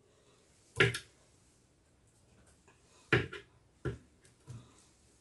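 Five short, separate knocks against a wooden mortar as pieces of boiled yam are added and mashed: one about a second in, a quick pair about three seconds in, then one more and a fainter last one.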